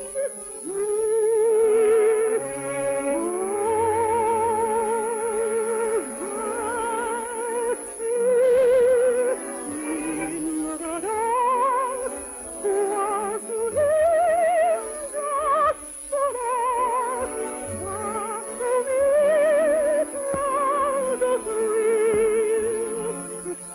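Operetta music with orchestra: a high melody line in wide vibrato, moving phrase by phrase over sustained lower notes, with short breaks about six and sixteen seconds in.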